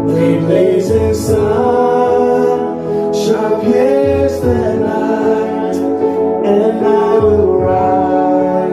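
Background music: a gospel worship song, sung voices over instrumental accompaniment.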